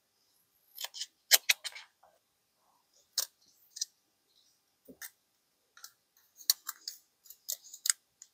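Scissors snipping through adhesive aluminum foil tape, then scattered sharp crinkles and crackles of the foil and its paper backing as the backing is peeled off and the piece is handled.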